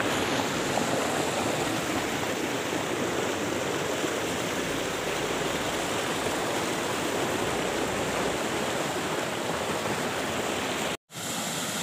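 Mountain stream rushing over boulders, a steady even rush of water. It breaks off for an instant near the end and comes straight back.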